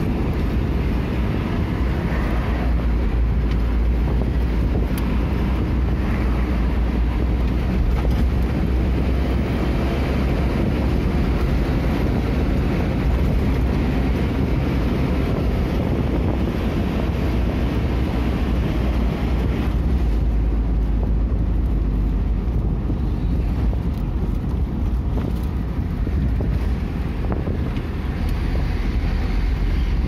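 Steady road and engine noise heard from inside a moving vehicle: a deep, even rumble with wind noise over it.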